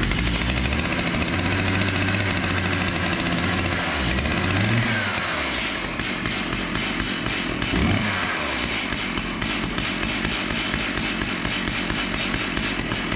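Stihl MS 880 chainsaw's big two-stroke engine running just after being started. It speeds up briefly about five seconds in and again around eight seconds, then settles to a slightly quieter steady idle.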